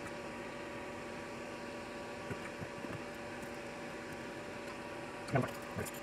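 Steady low electrical hum with faint even tones, broken by a few light taps and, near the end, a louder knock and a smaller one as the circuit board is handled on the work mat.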